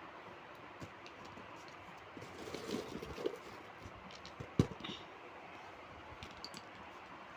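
Scattered light clicks and taps with some rustling as the unboxed items are handled, and one sharper knock a little past the middle.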